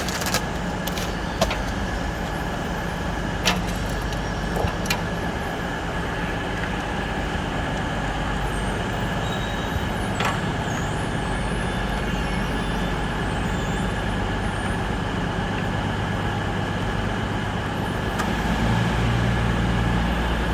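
Steady low rumble and hum of railway-station background noise, with a few sharp clicks and taps from work on the escalator steps. The low hum grows louder near the end.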